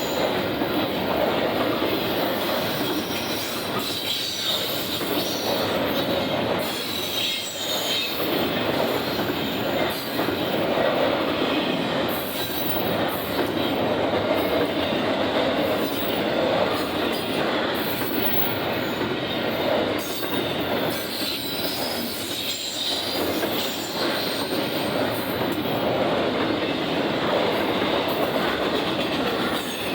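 Union Pacific intermodal freight train's cars rolling past: a steady, continuous noise of steel wheels running on the rails.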